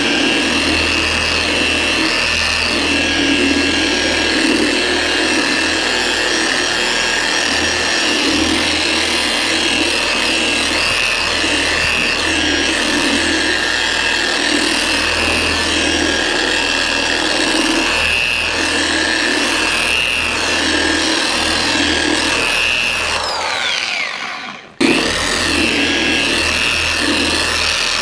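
Dual-action polisher running with a steady whine, its compound-loaded medium cutting pad working the clear coat to take out sanding scratches. Near the end it winds down in pitch, stops briefly, then starts up again.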